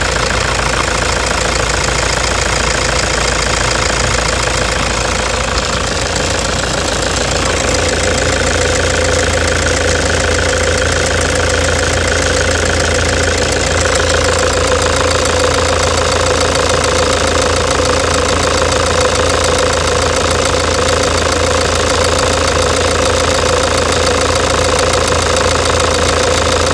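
Toyota Hilux D-4D turbodiesel engine idling with a loud knocking from a stuck, faulty fuel injector.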